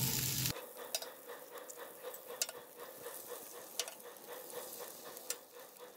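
Eggs, bacon and sausage frying in bacon grease on a flat-top griddle insert: an even sizzle with scattered sharp crackles. The sizzle is louder for the first half second, then drops suddenly to a fainter level.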